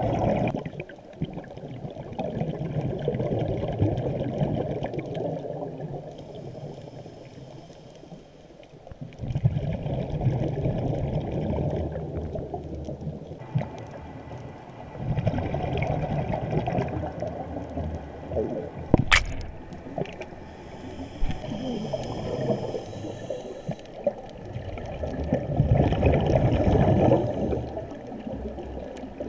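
Muffled water noise picked up by a camera underwater, sloshing and gurgling, swelling and fading every few seconds, with one sharp click about 19 seconds in.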